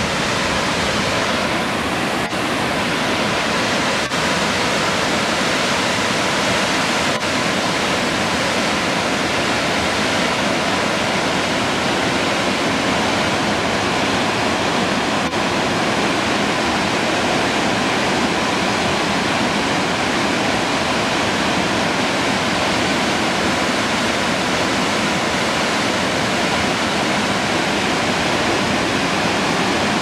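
Union Falls, a tall, wide waterfall, pouring steadily: a constant, even rush of falling water.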